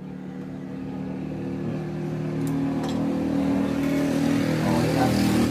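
A motor vehicle engine running and growing steadily louder, as if coming closer, then easing off right at the end, with two light clicks about halfway through.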